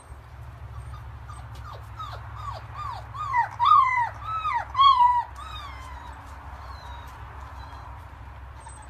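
A Labrador puppy whining, a quick run of about a dozen short high whimpers that each fall in pitch, loudest in the middle of the run, over a steady low hum.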